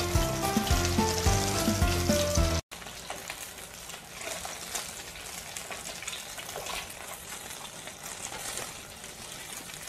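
Background music with a steady beat for the first few seconds, cut off suddenly. Then demi-glace mini hamburg steaks sizzling in a frying pan, with light clicks of metal tongs as the patties are turned.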